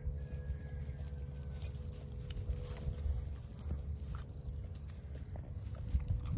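Sheep grazing on dry grass and hay, tearing and chewing it with small crunches and clicks. A steady low rumble runs underneath.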